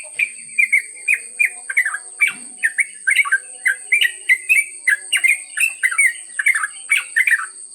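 Yellow-vented bulbul (trucukan) singing a long, fast 'ropel' run: a continuous string of loud, quickly repeated down-slurred whistled notes, about three or four a second, stopping near the end. A steady high insect drone runs underneath.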